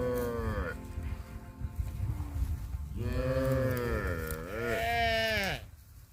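Cow mooing: a moo ends with a falling pitch just after the start, then a second long moo begins about three seconds in, its pitch dipping and rising before it drops off.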